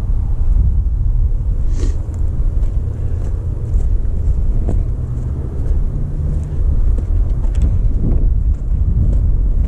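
Wind buffeting the microphone on an open slope: a loud, steady low rumble, with a few faint clicks and rustles.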